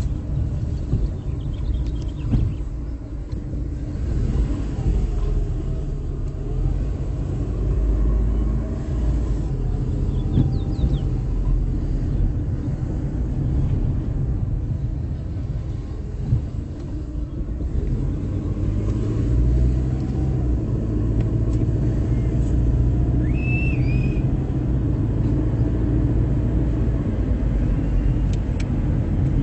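A motor vehicle running with a steady low rumble, its engine note rising and falling.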